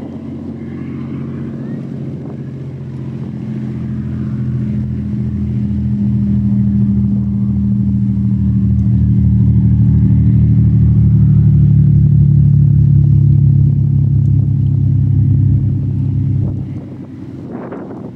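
High-speed passenger ferry's diesel engines and hull running past at speed, a deep steady drone that grows louder as it comes closer and drops off sharply near the end.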